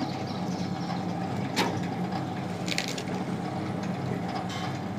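Electric passion fruit pulp extractor running with a steady motor hum, its spinning head scraping pulp in a stainless steel bowl, with three sharp clicks or knocks along the way.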